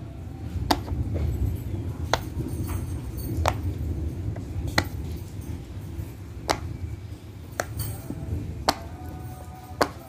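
Bubbles of a silicone pop-it fidget toy being pressed in by fingers, a sharp pop roughly every second or so, about eight in all.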